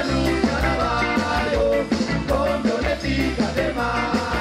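Ska band playing with a male lead singer over electric guitars, saxophone and a steady bass and drum beat.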